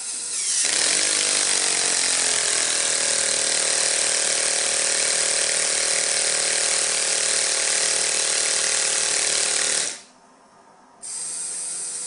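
Lego Technic pneumatic V-twin engine running on compressed air: a fast mechanical clatter with hissing air, rising in speed over the first second or two, then running steadily. It cuts off about ten seconds in, and a quieter steady running sound follows for the last second or so.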